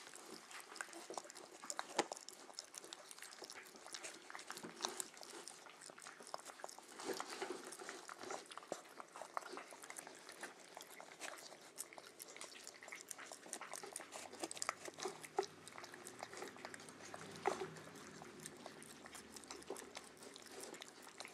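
Puppies eating mushy food from a plastic tub: continual chewing and biting with many small, irregular clicks.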